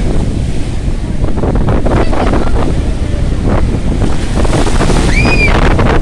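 Sea of Azov surf breaking and washing up a shallow sandy beach, with wind buffeting the microphone. About five seconds in, a short high call rises and falls.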